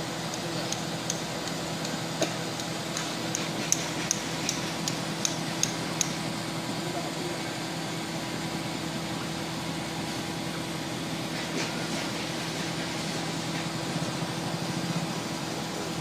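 Steady hum of heavy machinery running. In the first six seconds it is joined by a quick regular run of sharp metallic taps, about two or three a second.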